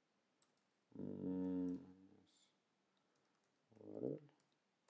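Faint, scattered computer keyboard clicks from typing code, with a man's voice making two drawn-out wordless sounds, one about a second in and a shorter one near the end; the voice is the loudest thing.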